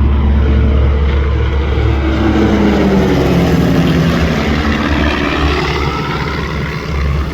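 Van's RV light propeller aircraft in a low flyby, their piston engines and propellers dropping in pitch as they pass overhead about halfway through, over a steady low rumble.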